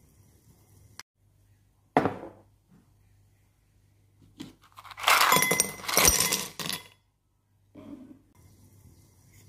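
A glass bowl is set down on a wooden table with a thud, then ice cubes are tipped into it, clattering and clinking against the glass for about two seconds.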